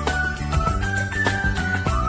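Background music: a melody of held notes with short pitch slides over a steady beat and sustained bass.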